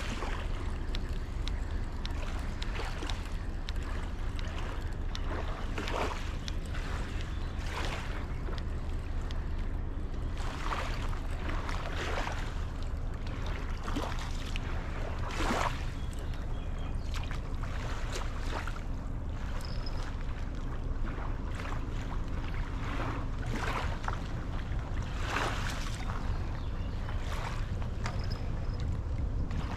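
Small waves lapping and splashing against a sandy river bank at irregular intervals every second or two, over a steady low rumble.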